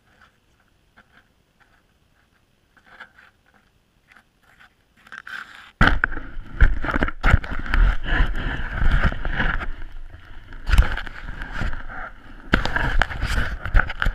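Handling noise from an action camera being picked up and moved about: faint clicks at first, then from about six seconds in a sudden loud rubbing and rumbling with repeated knocks against the microphone.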